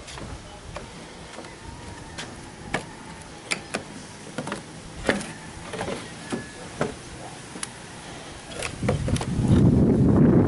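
Scattered light clicks and knocks at irregular intervals, then wind buffeting the microphone with a loud low rumble from about nine seconds in.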